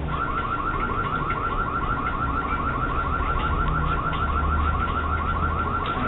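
Ring security camera siren sounding, a rapidly repeating rising whoop of about seven sweeps a second that starts abruptly. It is set off remotely by the homeowner to scare off intruders at the front door.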